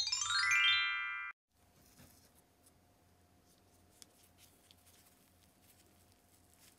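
A short logo jingle of quickly rising chime-like notes that cuts off suddenly after about a second. Then faint crackles and clicks as gloved fingers squeeze and tear open a crisp-shelled choux puff.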